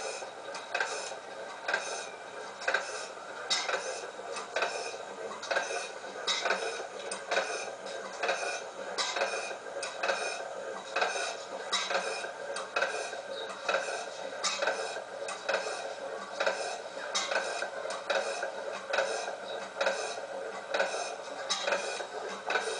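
1896 T. Melvin stationary town-gas engine running slowly, giving a steady rhythmic clatter of clicks and knocks, about one to two a second.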